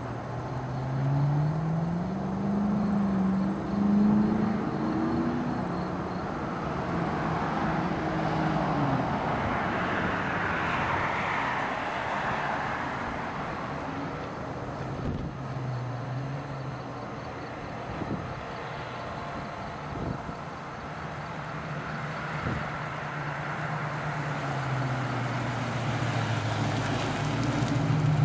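Chrysler 300C V8 running through a Borla exhaust with long-tube headers and high-flow cats. The exhaust note climbs in steps over the first several seconds, swells into a rush of noise, settles to a lower steady drone, and rises again near the end.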